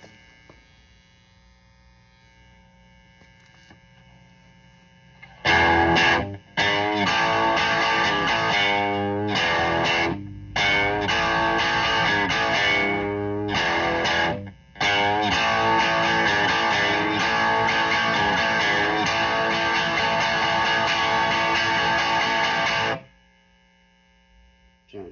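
A 1965 Gibson SG Junior electric guitar played through a 1975 Marshall JMP combo amp: distorted chords ring out, broken by three short pauses. Faint amp hum comes before the playing starts, about five seconds in, and returns after the chords stop near the end.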